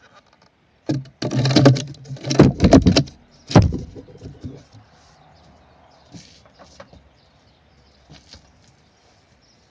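Homemade chipboard mortar jig scraped and knocked against a concrete block: a few loud grating scrapes in the first few seconds, then only a few faint clicks.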